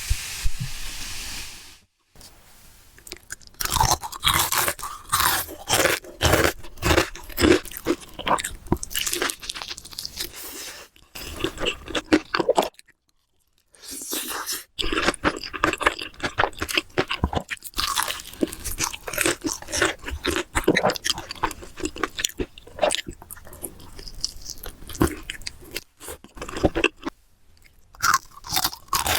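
Close-miked bites and chewing of crispy fried chicken, the coating crackling in dense, irregular crunches, broken by a short silence about halfway through.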